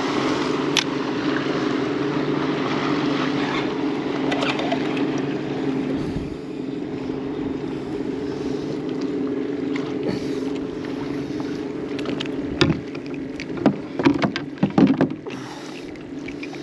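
A boat motor running with a steady, even hum. Near the end come a few sharp knocks and clicks as a small fish is brought in on the line.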